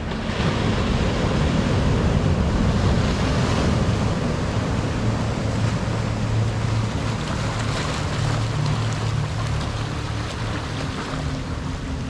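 Ocean surf breaking on a rocky shore and washing in foam over the rocks and tide pools. It is loudest in the first few seconds and eases off slowly.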